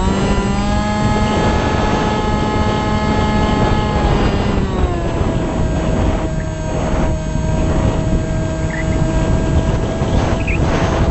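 Multiplex Shark RC plane's motor and propeller whining, heard from the onboard camera over heavy wind rush. The whine steps up in pitch just at the start as the throttle opens, holds, then drops to a lower steady pitch about four and a half seconds in as the throttle is eased back.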